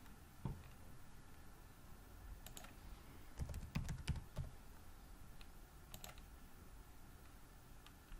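Computer keyboard keystrokes: a few scattered taps, with a quick run of several near the middle, over faint room hiss.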